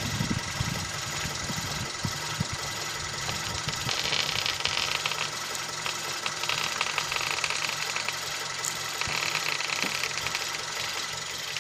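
Kia Sportage idling while its front wheels are steered back and forth at a standstill. A 'dın dın' knocking, ringing noise comes from the right front suspension in repeated bouts as the wheel turns, which the owner traces to worn front strut top-mount bearings.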